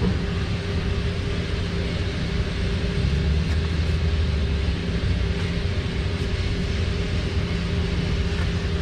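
A steady low mechanical rumble with a constant hum, as from an engine or machine running without change.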